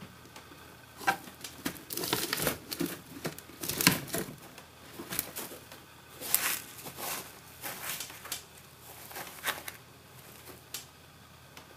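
A pet rabbit rustling about in wood-shaving litter and hay, shoving a dried corn cob across it: irregular crinkly bursts with a few sharper knocks, the loudest about four seconds in.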